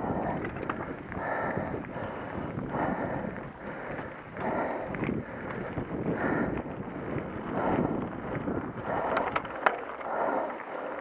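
A mountain biker breathes heavily while climbing slowly, with a hard breath about every second and a half. The breathing sits over wind noise on the microphone and the rumble of the ride. A sharp click comes near the end.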